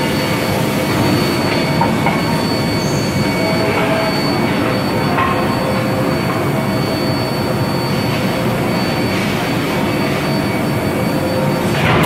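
Induction heating furnace and steel forging line running: a loud, steady machine noise with a constant high whine over it and a few light clanks.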